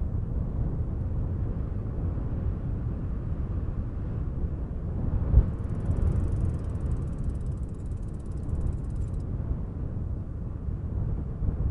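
Bicycle riding along a rough paved path: steady low rumble from wind on the microphone and the tyres on the pavement, with one sharp bump about five seconds in.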